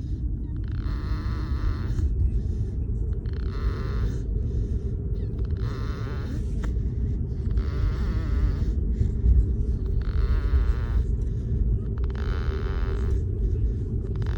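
Snoring, one snore about every two and a half seconds, each about a second long and fairly high-pitched, over a steady low rumble.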